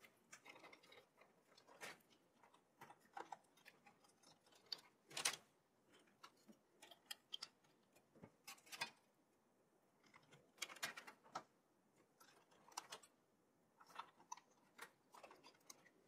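Faint, irregular small clicks and taps of plastic cable connectors being handled and pushed onto the motherboard's header pins inside a desktop PC case, the loudest about five seconds in.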